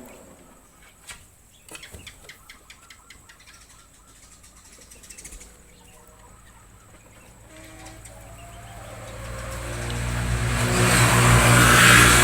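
A motor vehicle's engine approaching, growing steadily louder from about two-thirds of the way through and loudest near the end. Before it, faint chirps and scattered clicks.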